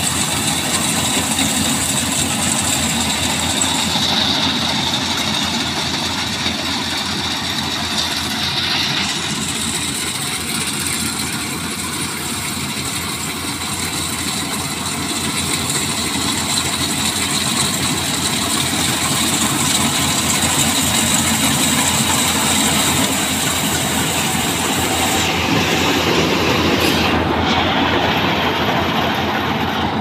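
Yanmar AW70GV crawler combine harvester running steadily under load as it cuts and threshes rice: a continuous mechanical din of engine, cutter, threshing drum and tracks, with a faint high whine.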